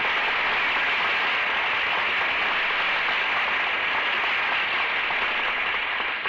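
Studio audience applauding steadily, heard on an old radio broadcast recording.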